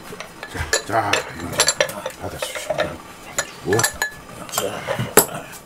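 Utensils clinking and scraping against bowls, cups and a metal pot as several people eat at a table: a steady run of short, sharp clicks.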